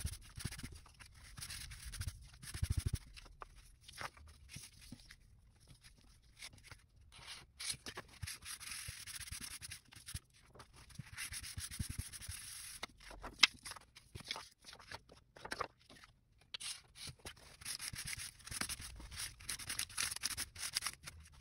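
Crumpled paper towel rubbed over mineral-oil-soaked paper pages, blotting off the excess oil: irregular soft papery swishing strokes, with a few small clicks and one sharp tap about thirteen seconds in.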